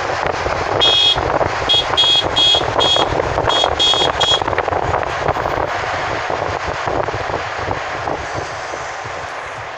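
A run of short, high-pitched horn toots, about eight of them, that stops about four seconds in. Under them is the steady road and wind noise of a moving vehicle, which slowly fades near the end.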